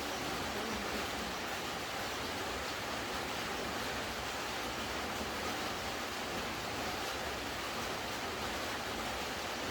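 Rain falling steadily, an even wash of noise.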